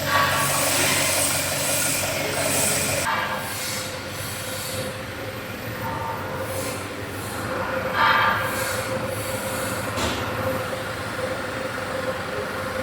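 A forklift's engine running, which cuts off about three seconds in, with high metallic squeals and scraping as the machine's heavy parts are shifted.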